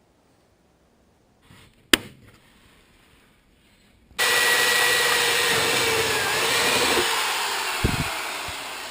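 A sharp click about two seconds in, then an electric drill starts abruptly and runs steadily with a faint whine, drilling holes through the stacked, tack-welded steel bracket plates, slowly getting quieter toward the end.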